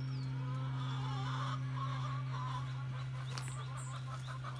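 Poultry clucking and calling in the background, with a quick run of short repeated calls near the end, over a steady low hum. A small bird gives one short falling chirp at the start.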